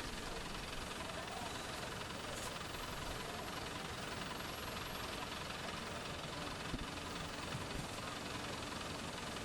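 Steady street background noise, an even hiss, with a couple of faint knocks late on.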